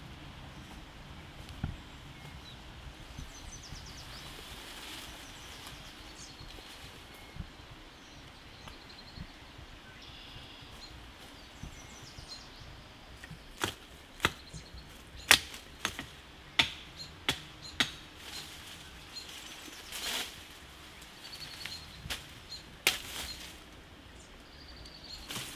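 Dry twigs and branches snapping in a string of about ten sharp, irregular cracks during the second half, over steady forest ambience with faint bird chirps.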